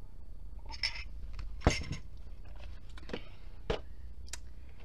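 A handful of short taps and rustles from a hand pressing and smoothing a plastic-covered diamond-painting canvas flat on a table, the sharpest about a second and a half in, over a low steady hum.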